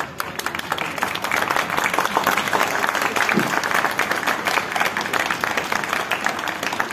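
Crowd of spectators applauding, a dense patter of clapping that swells about a second in and keeps up.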